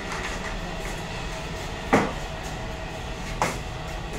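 Two sharp knocks about a second and a half apart as FRP fibreglass scaffold cross braces are clamped onto the H-frame, with a few fainter ticks over a steady background hum.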